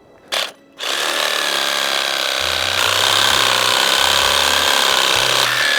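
Electric chainsaw running at a steady high whine as it cuts through a fallen tree trunk. It gives a brief blip, then runs continuously from just under a second in, with a low rumble joining about two and a half seconds in.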